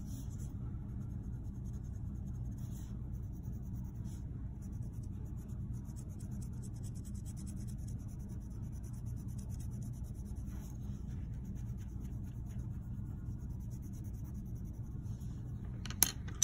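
Colored pencil scratching on paper as stripes are shaded in, over a steady low hum. A single sharp click near the end.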